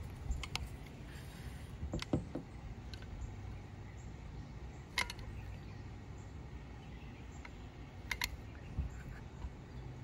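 A handful of short, sharp clicks from a hand caulking gun as its trigger is worked to squeeze out sealant, a few with a brief metallic ring, over a low steady background.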